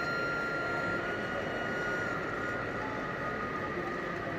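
Model train running on an exhibition layout, a steady whine that starts at once and weakens, dropping slightly in pitch, about two seconds in, over a steady background hubbub.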